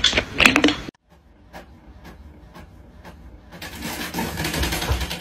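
A second of clicking and clatter cuts off abruptly. Then an inkjet printer runs, first with faint regular ticks about twice a second, then with a louder whirring from about three and a half seconds in.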